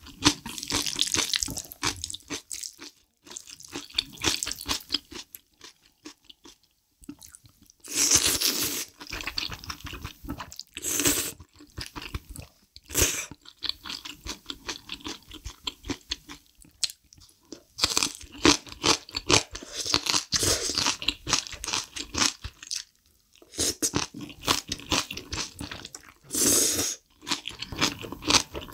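Close-miked eating of saucy instant black bean noodles: wet chewing broken by several loud slurps of about a second each.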